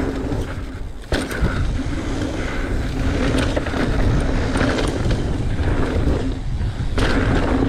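Downhill mountain bike rolling fast over dry dirt and loose rock: steady tyre and trail noise with a continual rattle of small knocks, and a sharp knock about a second in.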